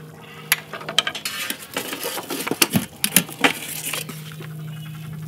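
Metal spatula and tongs clinking and scraping against a perforated metal pizza pan and a steel pizza oven as a pizza is lifted out: a string of sharp clinks over about three seconds, with a steady low hum underneath.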